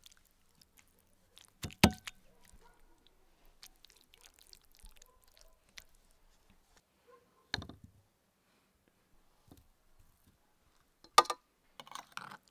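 Three sharp knocks of a utensil and clay bowl on a wooden table, about two, seven and a half and eleven seconds in, with soft squishing and rustling of cooked sauerkraut between them.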